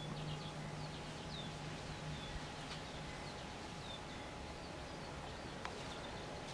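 Faint chirping of small birds: short high chirps about two a second, over a low steady hum that fades about two and a half seconds in. A single sharp click near the end.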